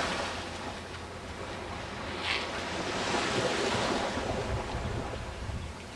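Surf washing onto a beach, with wind buffeting the microphone; the wash swells louder about three seconds in. A brief high-pitched sound cuts in a little after two seconds.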